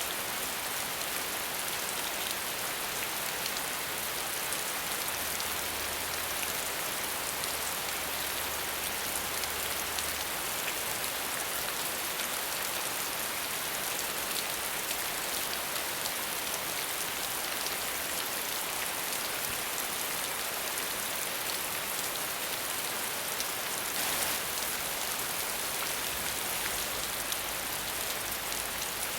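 Steady heavy rain falling, an even hiss with many fine drops pattering on a surface.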